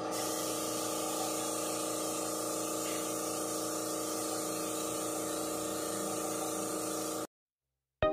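Pneumatic spray gun hissing steadily as lacquer topcoat is sprayed, over a steady hum from the air supply. It cuts off abruptly about seven seconds in.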